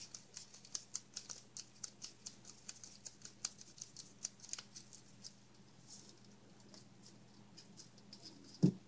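A screwdriver backing a small screw out of a plastic Traxxas E-Revo rear differential housing: quick, light clicking and scratching, several clicks a second, thinning out after about five seconds. A short, louder low sound comes near the end.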